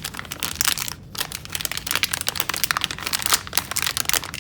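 Plastic anti-static bag being torn open along its perforation and crinkled while the ink cartridge is taken out: a dense run of sharp crackles with a short pause about a second in.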